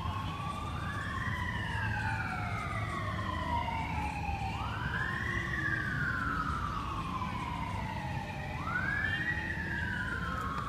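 Emergency vehicle sirens wailing, at least two sounding out of step with each other: each tone rises quickly in pitch and then falls slowly, repeating about every four seconds.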